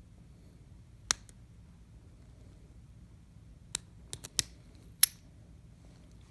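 Brinks brass padlock being picked: about six short, sharp metallic clicks from the pick and lock. One comes about a second in and the rest are clustered near the end, the loudest one last, just before the lock is open.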